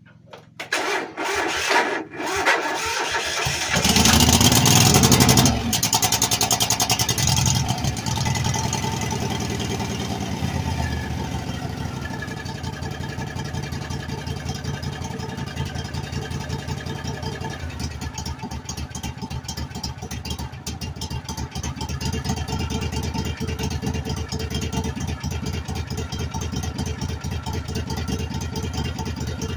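Craftsman GT3000 lawn tractor's 23 hp Kohler Command Pro V-twin on a cold start: the starter cranks for about two seconds, the engine catches and runs up loudly for a moment, then its pitch falls and it settles into a steady idle.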